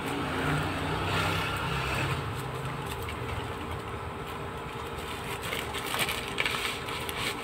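Plastic courier pouch and bubble-wrap packaging rustling and crinkling as it is cut and pulled open by hand, over a steady low hum. The crinkling comes in two spells, the second the louder, near the end.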